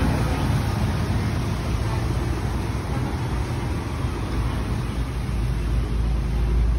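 Steady low rumble of a moving road vehicle with traffic noise around it, with no distinct events.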